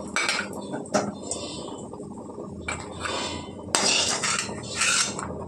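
A metal spoon scraping and clinking against a metal kadai, with several short scrapes and a few sharp clicks, as the last fried cashew pieces are scooped out of the ghee.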